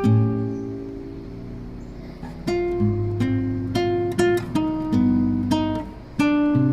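Background music: acoustic guitar strumming and plucking chords, with one chord left to fade for about two seconds before the strumming picks up again.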